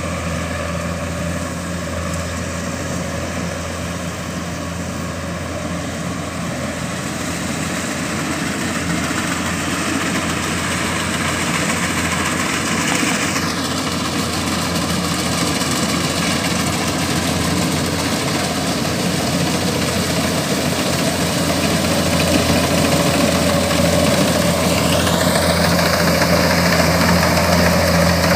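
Kubota DC-105X combine harvester's diesel engine and threshing machinery running steadily while cutting rice, growing louder as the machine comes closer.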